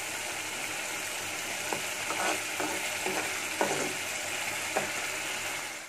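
Thick tomato-and-spice masala sizzling steadily in a pan as it is fried down, with a spoon stirring through it and a few short scrapes against the pan.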